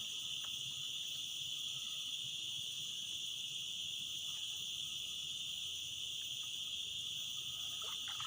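Steady chorus of insects in a tropical forest swamp: a continuous high-pitched buzzing trill that holds at an even level.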